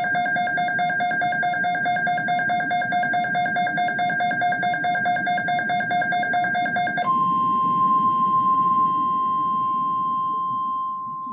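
Emergency alert tones from a weather radio broadcast: a loud electronic alarm warbling rapidly on several fixed pitches for about seven seconds, then a single steady tone near 1 kHz, the weather radio warning alarm tone, for about four seconds, fading near the end, over a low hiss.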